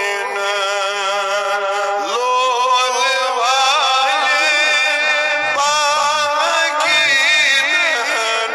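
A man singing a Kashmiri naat in a chanting style, with long held notes that waver and ornament in pitch.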